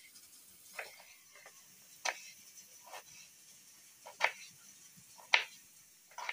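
Kitchen knife cutting through peeled chayote squash onto a wooden chopping board: about five sharp knocks of the blade hitting the board, spaced roughly a second apart.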